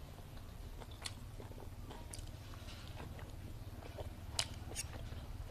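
Close-miked chewing and wet mouth sounds while eating, with scattered soft clicks and a sharper one about four seconds in, over a steady low hum.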